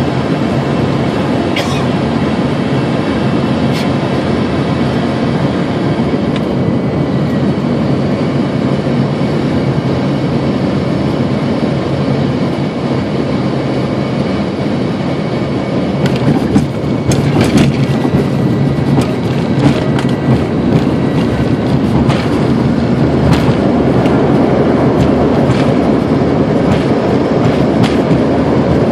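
Airliner cabin noise on final approach: a loud, steady rush of engine and airflow. Rattles and knocks begin about halfway, and the noise grows louder near the end as the plane comes down over the runway.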